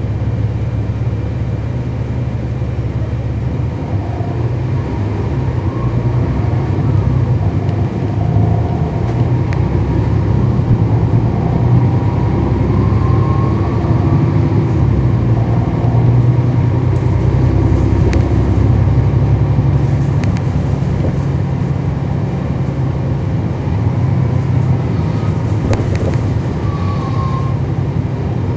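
Cummins ISL9 inline-six diesel of a NABI 40-foot transit bus, heard from on board: a steady low drone under load that grows louder a few seconds in, with faint whines that rise in pitch now and then.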